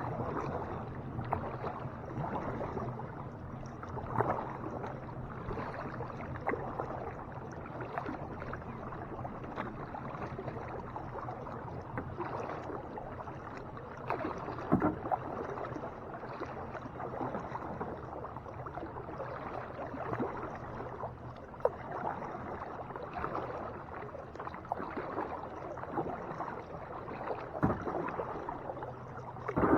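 Kayak paddling: paddle strokes splashing and dripping in lake water, with a few short knocks scattered through.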